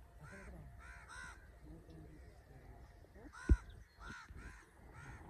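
Crows cawing repeatedly, a series of short calls, with one sharp low thump about three and a half seconds in.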